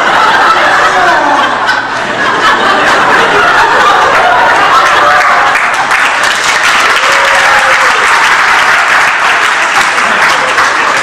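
Audience applauding, with some voices mixed in; the clapping thickens about two seconds in.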